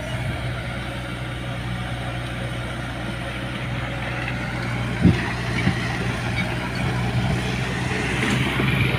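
Komatsu bulldozer's diesel engine running steadily under work, with a couple of short knocks about five seconds in.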